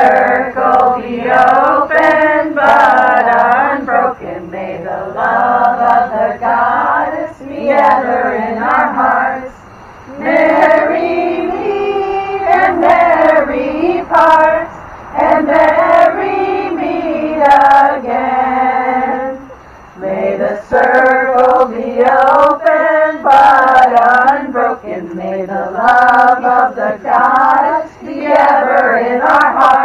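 A female voice singing a slow, melodic song in several long phrases, with short breaths between phrases about 10, 15 and 20 seconds in.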